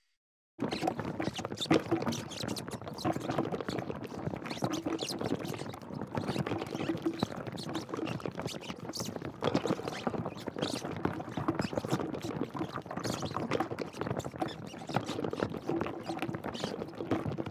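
Rubber wellington boots toppling among wobbling jellies: a dense, irregular patter of soft knocks and squelches that starts suddenly after a short silence.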